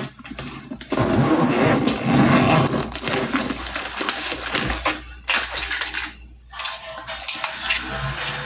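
A small handheld electric fan whirring, mixed with the handling of items; the sound drops out briefly twice.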